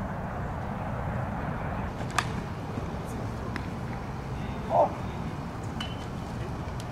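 Outdoor ambience at a ballfield with a steady low rumble and a few faint clicks, and one short, loud call a little under five seconds in.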